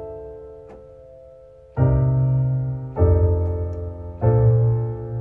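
Yamaha PSR-E323 portable keyboard playing sustained two-handed chords: one chord fading, then three new chords struck about a second apart, each ringing on. The left hand takes the bass notes D, C, F, B flat under four-note right-hand chords.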